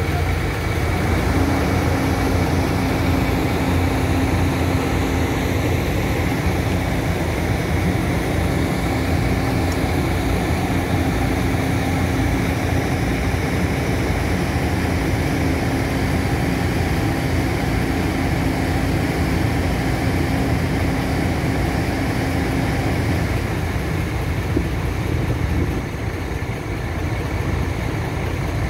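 Volvo EC350DL crawler excavator's diesel engine running steadily, with a steady higher hum that joins about a second in and drops away near the end.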